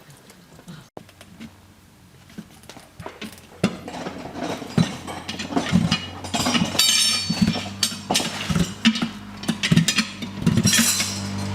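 An engine running with a steady low hum that builds from about halfway through, along with irregular knocks and clatter.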